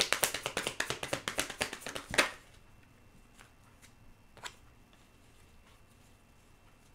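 Deck of tarot cards being shuffled by hand: a quick, dense run of card flicks that ends about two seconds in with a sharper snap, followed by a couple of faint card taps.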